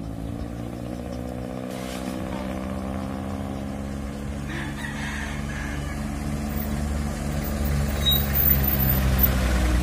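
Passenger jeepney's diesel engine running steadily as it drives up the road toward the listener, its drone growing gradually louder.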